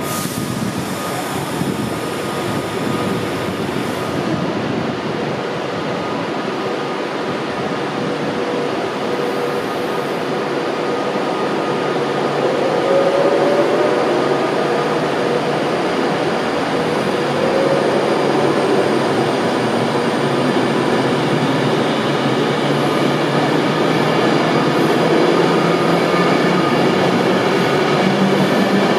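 Class 390 Pendolino electric multiple unit pulling away and running past at close range: a steady rolling rumble of wheels on rail that grows slowly louder as it gathers speed. Two faint rising whines come partway through.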